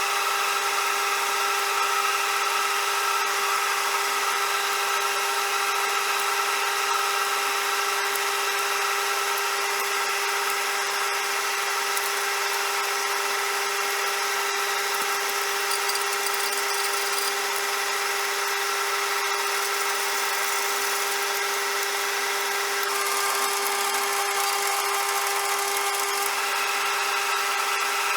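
CJM360 benchtop metal lathe running, a steady motor whine with hiss over it.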